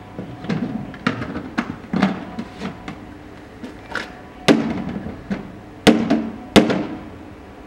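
A red plastic barrel being struck with a rolled tube: a run of irregular knocks and thuds, mostly light taps, with three harder hits in the second half.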